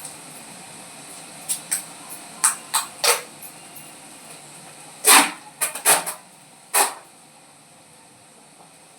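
About ten short scrapes and knocks of a kitchen utensil, coming at uneven intervals over a steady faint hiss, then stopping about seven seconds in.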